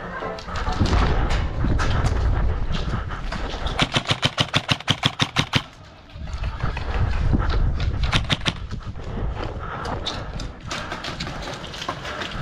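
Airsoft gun firing a rapid string of about a dozen shots, roughly six a second, each a sharp crack, with scattered single shots and low rumbling handling noise around it.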